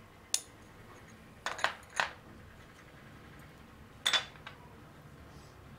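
Metal spoon clinking against glass bowls in a handful of short, sharp taps: one near the start, a quick run of three about a second and a half in, and another about four seconds in.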